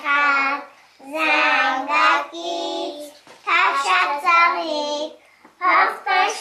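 A young child singing in short phrases with brief pauses between them, some notes held steady.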